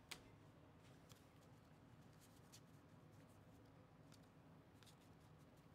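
Near silence: room tone, with one short click just after the start as a trading card is set down on the table mat, and a few fainter ticks later.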